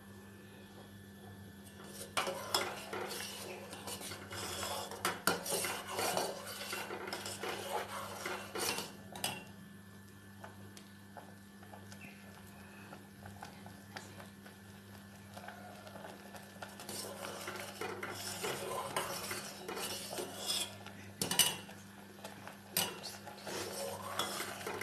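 Steel ladle stirring and scraping thick rice kheer in a stainless steel pan, with metal-on-metal clinks against the pan. The kheer is being kept moving on low flame just after sugar has gone in. The stirring comes in two spells, from about two seconds in and again in the second half, with a quieter pause between and a faint steady hum underneath.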